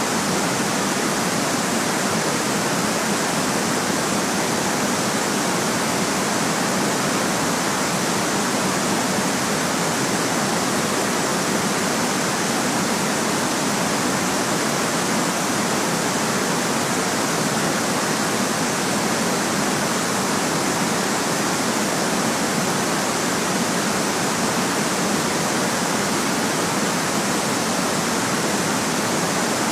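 Steady, unchanging white noise: an even hiss spread across all pitches, with no events or variation.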